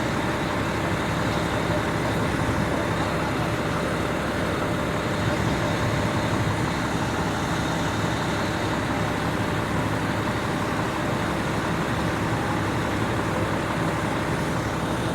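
Fire apparatus engines running steadily at the fireground, a constant drone with faint steady tones that does not change.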